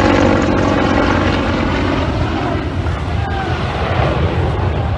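Loud, steady aircraft engine noise, with voices of a crowd mixed in faintly, easing off slightly after about two seconds.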